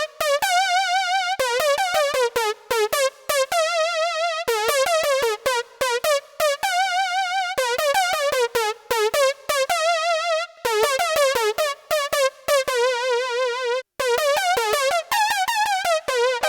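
Solo synthesizer keyboard playing a lead melody with a strong, even vibrato, in short phrases broken by brief gaps.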